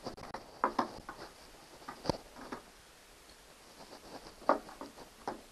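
Irregular clicks and knocks of tools and parts being picked up and set down on a workbench, about half a dozen, the sharpest knock about two seconds in and another about four and a half seconds in.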